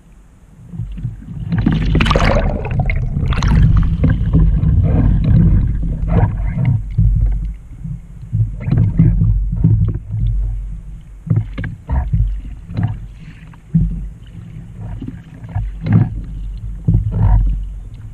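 Water splashing and sloshing against a Trak kayak's deck and hull under a low rumble of wind on the microphone, with a loud rush of water about two seconds in, then paddle blades dipping into the water in a stroke rhythm of about one splash a second.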